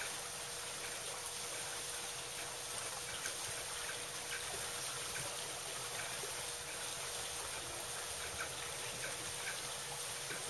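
Steady rushing of water, even throughout, with a faint steady hum underneath.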